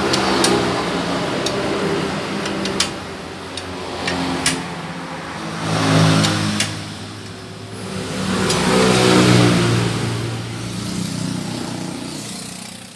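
Honda GX390 single-cylinder petrol engine running and being revved: it speeds up and drops back twice, about halfway in and again a few seconds later. A few sharp clicks sound in the first half.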